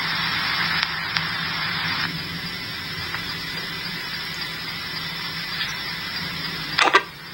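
Police radio scanner stream playing from a phone with an open channel: a steady static hiss over a faint low hum, with one short loud burst of noise near the end.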